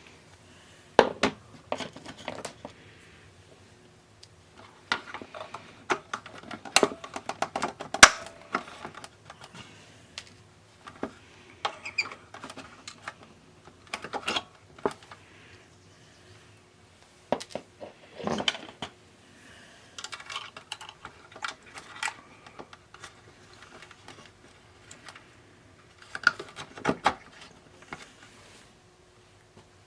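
Side cutters snipping and crunching through plastic mounting posts and tabs in a radio's plastic case: clusters of sharp clicks and cracks every few seconds, with short gaps between.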